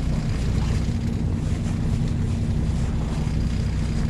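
A fishing boat's engine running steadily as a low hum, with wind and water noise over it.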